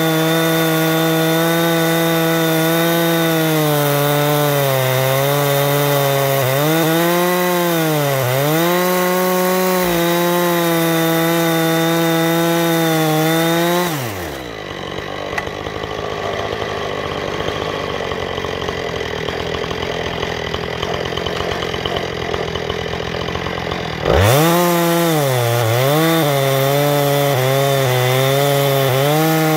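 Husqvarna 460 Rancher two-stroke chainsaw in an Alaskan chainsaw mill, running at full throttle as it rips along a cedar log, its pitch dipping repeatedly as it bogs under load. About halfway through the engine winds down to a lower, rougher idle for around ten seconds, then comes back abruptly at full cutting revs.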